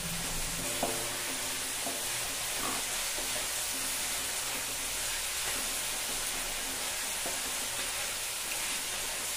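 Chopped vegetables sizzling in oil in a steel kadhai while a wooden spatula stirs and scrapes them: a steady frying hiss with a few light knocks of the spatula.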